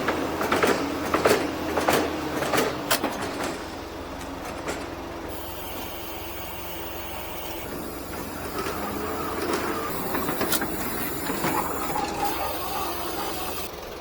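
Ladder truck's engine and lift machinery running. A run of sharp clanks and knocks comes in the first few seconds, then a steadier mechanical noise with a high whine until near the end.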